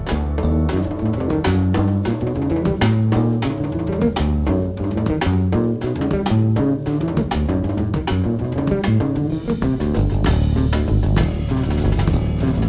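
Instrumental band music: a drum kit with bass drum and snare hits driving under a busy, moving bass line.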